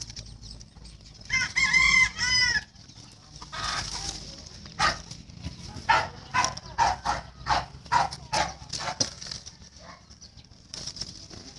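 A rooster crows once, about a second in, then chickens cluck in a quick run of short calls, about three a second.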